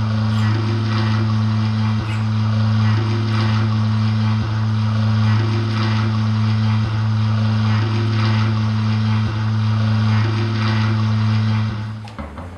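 Electronic soundtrack built on a steady low electric-hum drone, with a higher tone coming and going about every two and a half seconds and a crackling haze over it; the drone cuts out near the end.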